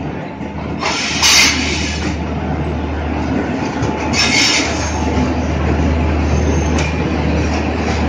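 WAP-4 electric locomotive and its passenger coaches rolling past close by: a steady low rumble of wheels on rail, with two short bursts of high hiss about one second and four seconds in.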